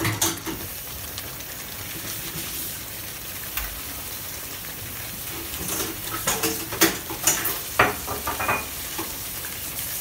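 A pot of stew sizzling steadily on the hob, a constant hiss, with a few sharp clinks and knocks of kitchenware being handled about six to eight seconds in.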